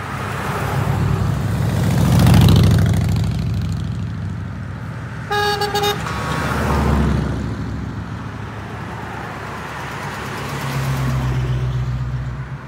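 Classic cars and a motorcycle driving past one after another, each engine swelling and fading, with the loudest pass-by about two seconds in. A car horn toots briefly about five seconds in.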